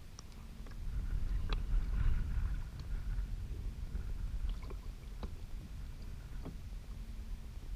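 Choppy lake water lapping against a kayak, with a low wind rumble on the microphone and a few scattered drips and light knocks. The rumble swells about a second in and eases after the third second.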